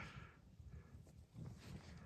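Near silence, with a faint, uneven low rumble.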